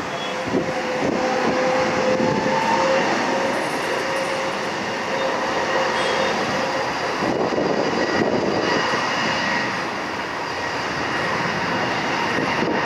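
Twin jet engines of an Airbus A320-family airliner running as it rolls along the runway: a loud, steady rumble with a whine that rises slightly in pitch over the first few seconds.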